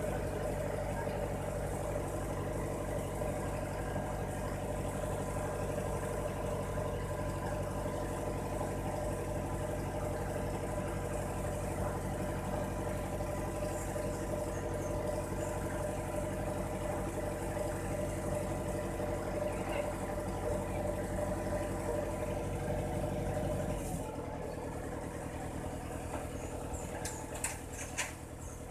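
Boom truck's engine running steadily, dropping to a lower, quieter note about three-quarters of the way through, followed by a few sharp clinks near the end.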